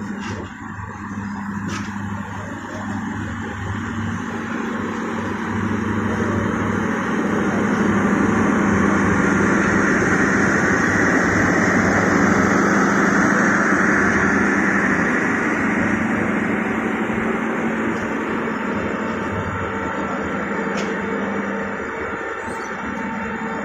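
A passenger train rolling slowly into a station, heard from an open carriage window. The steady running noise of wheels on the rails swells through the middle and eases off toward the end, over a steady low hum, with a few isolated sharp clicks.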